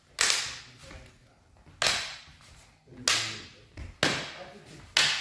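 Training klewang sabres and carbines clashing in cut-and-parry exchanges: five sharp hits about a second apart, each ringing out in the hall's echo.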